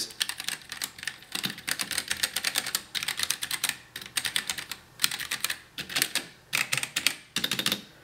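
Womier K66 mechanical keyboard with Gateron red switches being typed on in quick flurries with a few short pauses, each key pressed all the way down so it clacks as it bottoms out: a decent amount of sound.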